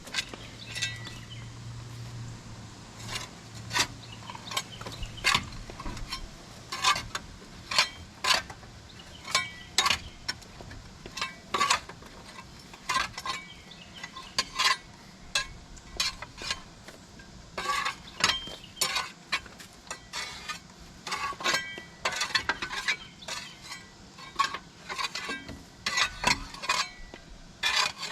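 A steel tool striking and scraping an excavator's steel tracks to clear off mud and debris: repeated sharp metallic clinks and knocks, irregular, about one or two a second.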